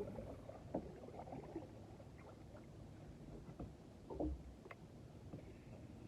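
Faint water lapping and scattered small knocks and clicks from a kayak, with no steady machine sound.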